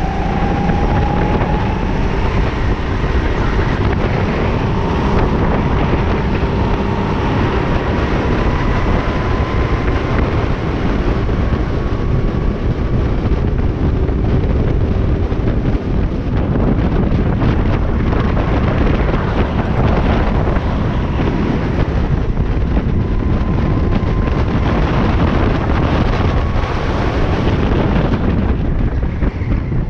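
Onboard go-kart at racing speed: heavy wind buffeting on the microphone over the kart's engine, whose faint note rises slowly as the kart accelerates, then holds fairly steady.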